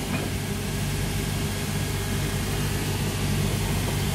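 Cobbler's shoe finishing machine running steadily with a constant motor hum.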